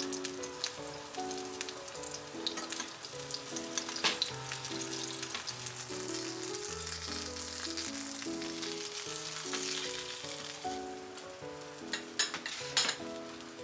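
Flour-dusted fish fillets sizzling in oil in a nonstick frying pan, a steady hiss with a few sharp clicks, two of them close together near the end. Soft background music with held notes plays throughout.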